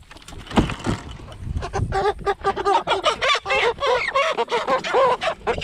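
Cornish Cross broiler chickens squawking, short calls one after another, as one of them is grabbed. A single knock comes about half a second in.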